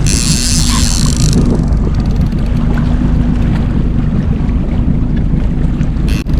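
Boat motor running steadily with a low hum, with wind buffeting the microphone; a brief high hiss in the first second and a half.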